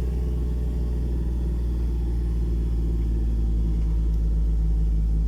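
Moving vehicle's engine and road noise: a steady low rumble that grows slightly louder.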